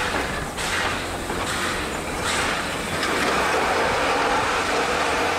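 Wooden passenger carriages of a heritage train rolling slowly past, their wheels knocking over the rail joints three times in the first couple of seconds, then settling into a steady rolling rumble.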